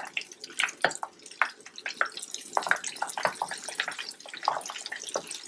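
Flour-dredged pork chops frying in a pan of hot oil: a steady sizzle with many scattered crackles and pops.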